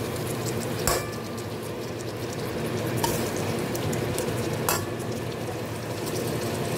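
Sliced tomatoes, onions and garlic sizzling in oil in a stainless steel pan, cooking down to release their juice, while a metal spoon stirs them. The spoon clinks sharply against the pan about three times.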